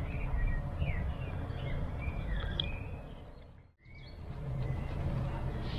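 Small birds chirping and calling in woodland over a low, steady background rumble. The sound fades out to silence for a moment a little before four seconds in, then returns.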